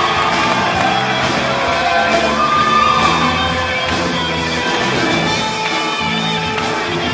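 A live band with electric guitars plays loudly on stage with a steady bass line, while a large group of voices sings and shouts along.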